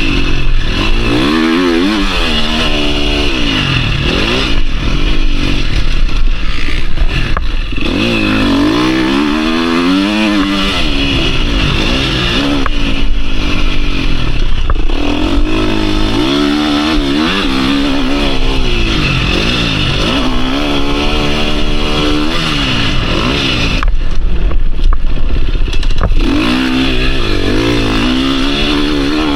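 2022 KTM 350 SX-F's single-cylinder four-stroke motocross engine ridden hard on track, revving up and backing off over and over, its pitch rising and falling every few seconds as the throttle and gears are worked.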